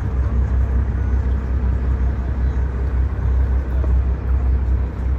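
Boat engine running steadily with a low, continuous rumble.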